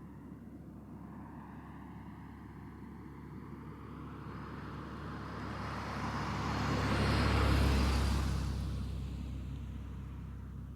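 Police car driving past at close range: engine and tyre noise build up, are loudest about seven to eight seconds in, then fade as it moves away.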